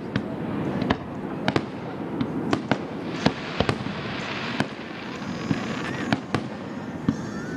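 Aerial fireworks shells bursting: a steady run of sharp bangs at irregular intervals, about two a second.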